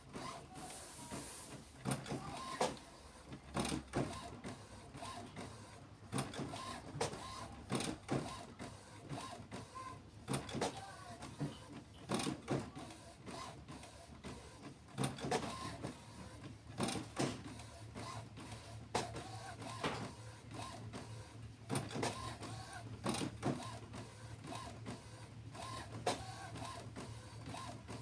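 HP Officejet Pro 8600-series inkjet printer running its startup initialization and alignment cycle: the mechanism whirs with irregular clicks and clunks every second or so over a steady low hum.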